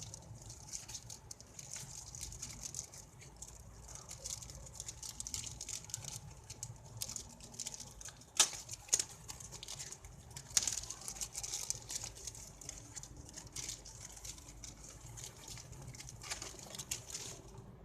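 Packaging being handled, with irregular crinkling and rustling and a few sharp clicks, the loudest about eight and ten and a half seconds in.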